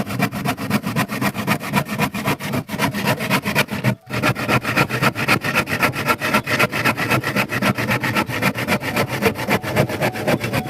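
Power tool running on wood with a rapid, even pulsing, briefly breaking off about four seconds in.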